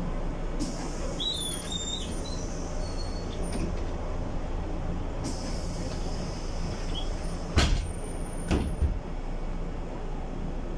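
Mercedes-Benz O345 city bus running steadily with a low engine hum. There are a few short high squeaks in the first two seconds, and two heavy thumps about seven and a half and eight and a half seconds in.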